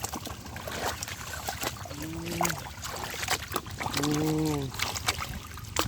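Water splashing and dripping in many small sharp ticks, as in shallow water being worked by hand. Twice, about two seconds and four seconds in, a short, held, low call sounds over it.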